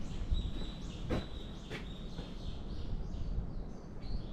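Birds calling in woodland, one holding a thin high note for about two seconds while others give short chirps, over a low rumble of wind on the microphone. Two sharp taps about a second in, like footsteps on stone.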